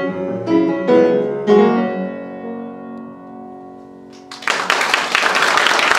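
Piano playing the song's closing notes, then a last chord that rings and fades away. About four seconds in, the audience suddenly starts applauding.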